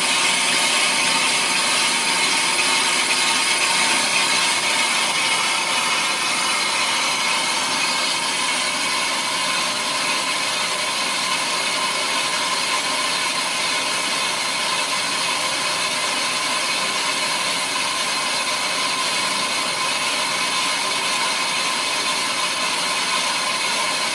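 Ammco brake lathe spinning a brake drum while its cutting bit feeds across the drum's braking surface, about halfway through the cut: a steady metallic cutting hiss with several held whining tones over the lathe's motor.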